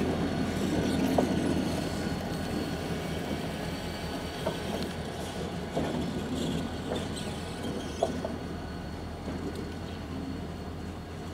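Two diesel road locomotives, a GP40 and an SD unit, running slowly along the yard track: a steady low engine drone with a few short clicks, slowly fading as they pull away.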